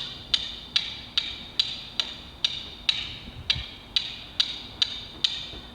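Sharp, evenly spaced knocks, about two and a half a second, each ringing briefly and growing fainter near the end.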